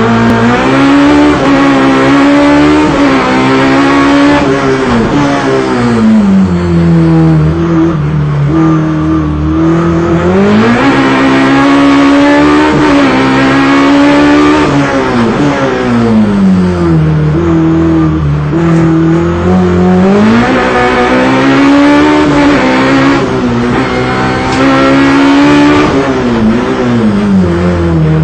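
Race car engine heard from inside the cockpit under hard driving, loud throughout. Its revs climb and drop several times.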